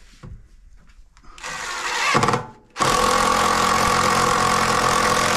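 Cordless power driver driving a wood screw into wooden floor blocking: a short run about a second and a half in that stops, then from about three seconds in a steady, loud whine as the screw is driven.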